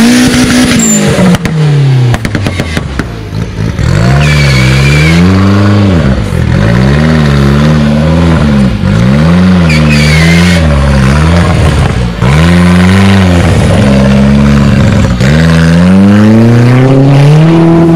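Competition off-road 4x4's engine revving up and dropping back again and again, about every two seconds, as it fights for traction in deep mud. Two short high squeals come through, about four seconds in and again near ten seconds.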